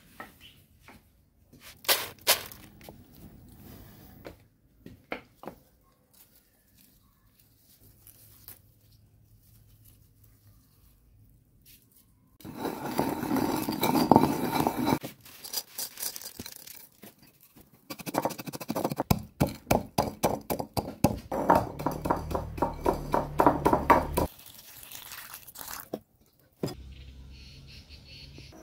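Wooden pestle grinding and pounding in an unglazed clay mortar. It comes in two loud spells, first a dense scraping grind, then a longer run of rapid strokes several a second.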